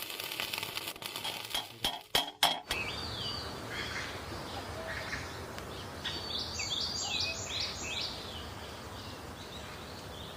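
A few sharp clicks in the first couple of seconds, then small birds chirping over steady outdoor background noise, with a quick run of short, falling chirps about six to eight seconds in.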